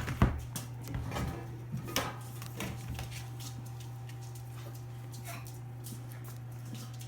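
Five-week-old Labrador puppies whimpering and yipping. There are several sharp knocks and scuffles in the first three seconds, and it is quieter after that.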